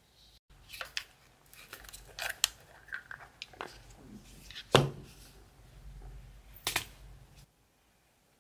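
Small plastic gel pot and its lid being handled and opened: a run of clicks, knocks and scrapes, with the loudest knock a little past halfway and another sharp click near the end.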